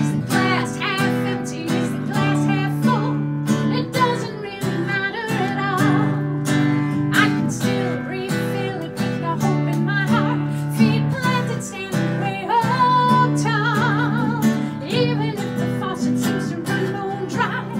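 A woman singing, with vibrato on held notes, while accompanying herself on a strummed nylon-string classical guitar.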